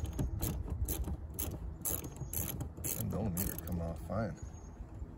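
Socket ratchet clicking in quick runs as it turns the 10 mm nut off the rear wiper arm.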